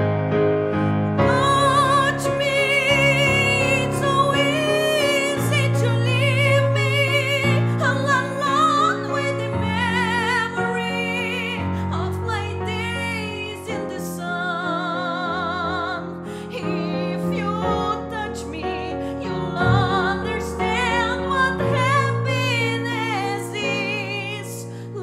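A woman singing a slow ballad solo with wide vibrato, over instrumental accompaniment that holds long low notes.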